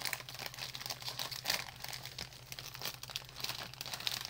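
Plastic snack bag of pork rinds crinkling as hands grip and pull at it, a run of quick irregular crackles. A steady low hum runs underneath.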